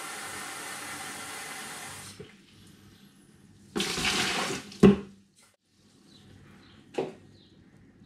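Kitchen tap running into a measuring jug, shut off about two seconds in; then a gush of water tipped from the jug into a plastic bucket, followed by a sharp knock, and another knock about two seconds later.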